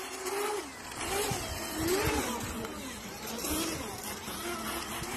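Small electric trials-style dirt bike's motor whining, its pitch rising and falling several times as the throttle is opened and eased off, with a few low thumps from the tyres over the concrete.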